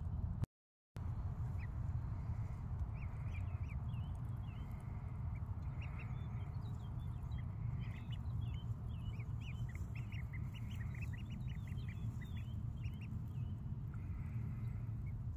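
Ducklings and young chicks peeping: many short, high chirps that come thickest in the middle, over a steady low rumble.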